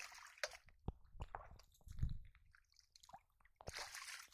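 Hand splashing and groping in shallow muddy water inside a bamboo polo fish trap: a string of short splashes and squelches, with a longer splash near the end.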